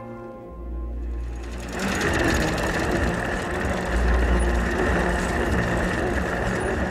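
Fast mechanical clatter and whir of a small machine with a spinning wheel, starting about two seconds in and running on steadily over a low rumble.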